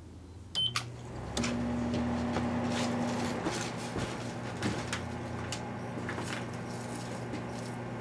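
Microwave oven started: a short keypad beep and a couple of clicks, then the oven's steady low hum comes on about a second and a half in and keeps going, with irregular sharp snaps over it while the neon flicker bulb inside glows.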